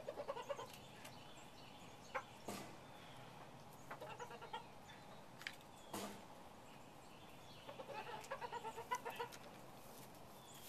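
Silver Sussex rooster clucking in quick runs of short low notes, about seven or eight a second: one run at the start, a short one about four seconds in and a longer one near the end. A few faint clicks fall between the runs.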